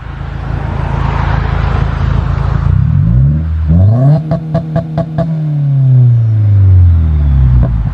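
2017 Subaru WRX's turbocharged flat-four, Stage 2 tuned, through an Invidia R400 exhaust: idling, then revved up about three seconds in and held on the two-step launch-control limiter, popping rapidly for about a second. The revs then fall slowly back toward idle.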